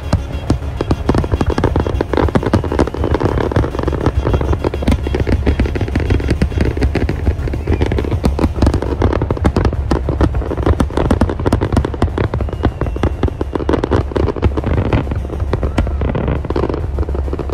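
Fireworks display bursting in rapid succession: many bangs and crackles close together, with music playing underneath.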